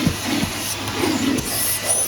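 1985 Kärcher coin-operated car-wash vacuum running with a steady rushing hiss of suction, with a sharp knock at the start and uneven softer bumps as the nozzle works over the car's interior.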